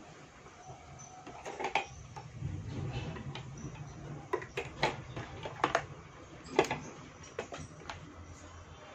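Scattered light clicks and taps, about seven, as the plastic front-panel board of a car stereo is handled, over a faint low hum.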